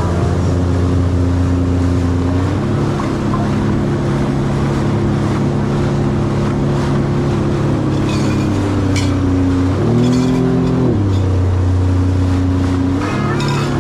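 Jet ski engine running at a steady cruising speed over the water, its pitch shifting as the throttle changes and rising for about a second near two-thirds of the way through.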